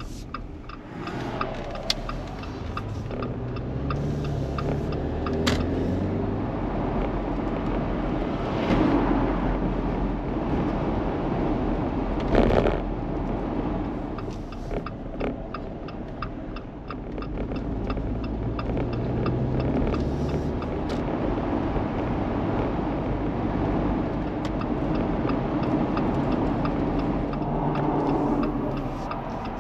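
Jeep being driven, heard from inside the cabin: steady engine and tyre-on-road noise, the engine pitch rising as it accelerates near the start and again about two-thirds of the way through, with a faint regular ticking at times.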